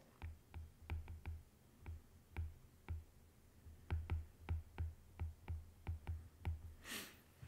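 Stylus tapping and clicking on a tablet screen while handwriting: a string of faint, irregular taps, about three a second, each with a dull low thump. A short breath near the end.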